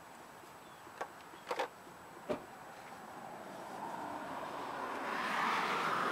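A car passing on the road, its tyre and engine noise swelling steadily from about halfway through and loudest near the end. Before it, a few light clicks.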